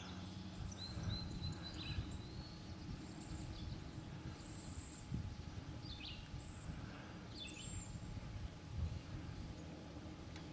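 Birds calling: short high chirps and whistled notes scattered throughout, over a low steady rumble.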